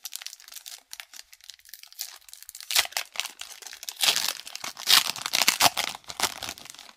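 Wrapper of a hockey trading-card pack crinkling and tearing as it is pulled open by hand, a dense run of crackles that gets louder partway through.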